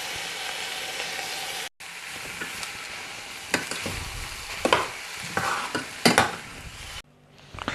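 Diced corned beef and onions sizzling in butter in a small stainless steel pot, with a metal spoon scraping and knocking against the pot as it is stirred in. The sizzle breaks off briefly about two seconds in and stops near the end.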